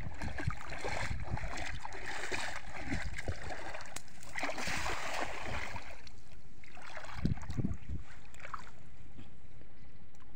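Cast net thrown over shallow river water, landing with a brief splash about halfway through, over a steady low rumble. Two dull thuds follow later, as water sloshes around the wading legs.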